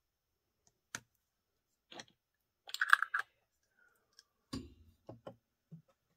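Light clicks and taps of a metal bottle-cap flower on a wire paperclip being handled and set down on a work surface, loudest as a short rattle of clicks about three seconds in. A duller knock follows about a second later, then a few small taps.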